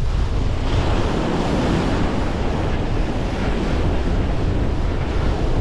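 Wind buffeting the microphone over a steady wash of ocean surf.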